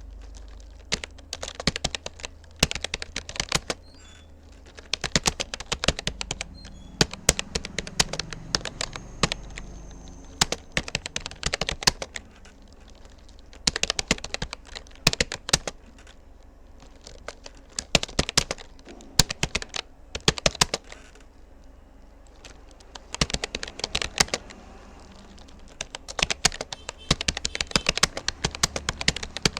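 Touch-typing on a Rapoo computer keyboard: rapid runs of key clicks in bursts of several seconds, broken by brief pauses.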